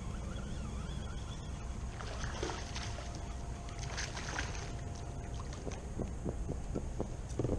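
Water splashing beside a kayak as a hooked speckled trout thrashes at the surface, in two bursts, over a steady low rumble of wind and water. A run of short knocks follows near the end.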